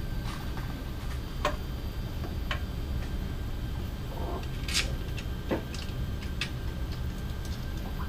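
A handful of separate light clicks and taps as a stepper motor, its timing belt on the pulley, is handled and seated against an aluminium extrusion frame, over a steady low hum.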